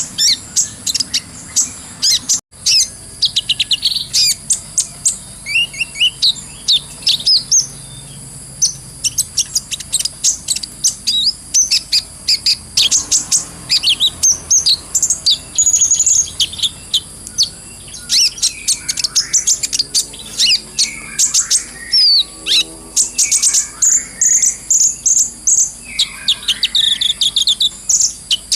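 A kolibri ninja sunbird singing a full, busy song of rapid high-pitched chirps, twitters and fast trills, with barely a pause.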